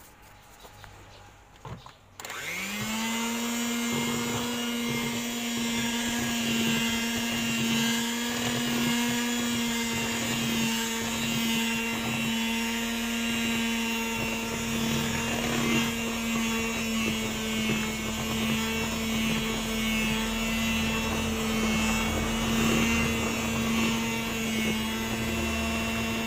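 Electric hand mixer switched on about two seconds in, its motor spinning up quickly to a steady whine as the beaters work through butter cake batter in a bowl.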